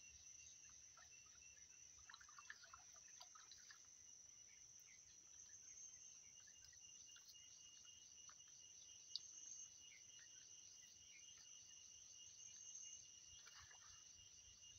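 Faint, steady, high-pitched insect chorus with a regularly pulsing trill, over scattered faint rustles and clicks. One sharp click comes about nine seconds in.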